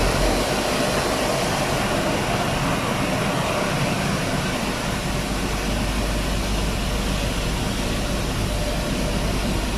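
Automatic car wash machinery working over the car, heard from inside the cabin: a steady, even rushing noise of water and machinery with no let-up.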